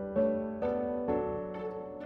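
Background music of plucked or piano-like notes at an even pace, about two notes a second.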